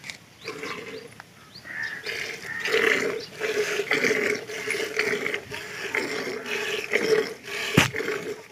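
Milk squirting from a water buffalo's teats into a steel pail during hand milking: rhythmic hissing spurts about twice a second, building up after a quieter first two seconds. A single sharp knock near the end.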